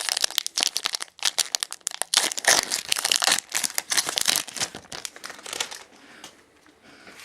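Foil wrapper of a Pokémon booster pack crinkling as it is torn open and handled. The dense crackle thins to faint rustles after about five seconds.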